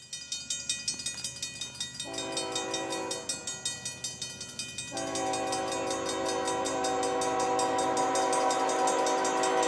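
An approaching BNSF GE ES44DC locomotive sounds its multi-note horn: a first blast about two seconds in, then a louder, longer blast from about halfway that carries on. A bell dings rapidly throughout, at about four strokes a second.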